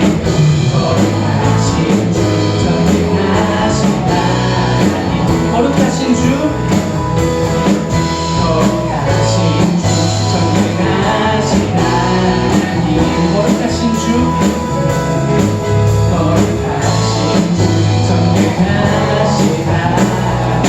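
Live worship band playing an instrumental passage, a drum kit keeping a steady beat under guitar, bass and keyboard.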